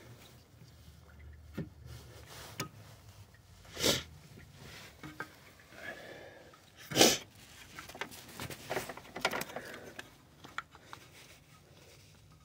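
Hands working spark plug wires and their boots down in a van's engine bay, making scattered small clicks and rustles. Two short sharp bursts of noise, about four and seven seconds in, are the loudest sounds.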